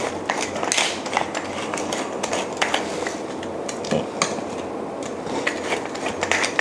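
Wooden pepper mill grinding black pepper over a metal tray: quick runs of small crackling clicks as the mill is twisted, with a couple of louder knocks about four seconds in as the tomato halves are handled on the tray.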